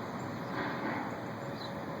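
Steady noisy drone outdoors, the unexplained sound heard from the sky, with a faint steady hum. A faint short high chirp comes near the end.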